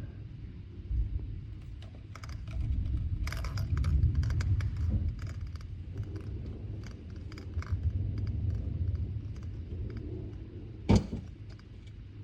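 Low rumble of thunder swelling and fading, with scattered light clicks and rustles of the phone being handled and one sharp knock near the end.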